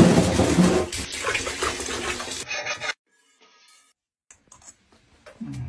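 Water running hard from a bathtub faucet into the tub, splashing, loudest in the first second and cutting off about three seconds in. After that only a few faint ticks.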